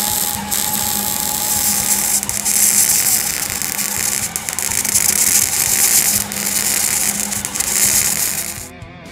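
Gas-shielded MIG welder arc crackling and sizzling steadily as a bead is laid on steel exhaust pipe, stopping abruptly shortly before the end.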